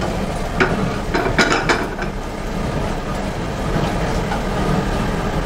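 Long metal spatula scraping and clinking against a nonstick frying pan as whole spices are stirred and roasted in oil, with a cluster of scrapes and taps about one to two seconds in. A steady low kitchen rumble runs underneath.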